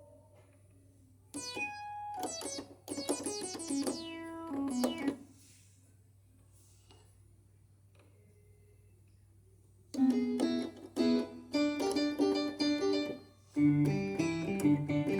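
Nord Stage 3 stage keyboard playing a bright piano-like patch: two short flurries of notes, a pause of several seconds with only a faint low hum, then steadier playing from about ten seconds in, with lower bass notes joining near the end.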